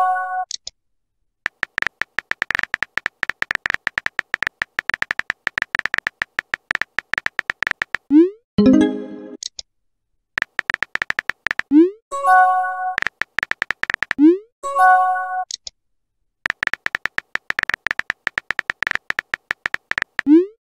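Texting-app sound effects: long runs of rapid keyboard tap clicks as messages are typed. Three times, a new message appears with a short rising pop followed by a brief synthetic chime, and the pop comes again at the very end.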